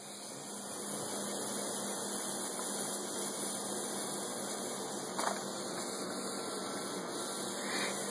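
Steady hiss and low hum of background noise, with one brief faint click about five seconds in.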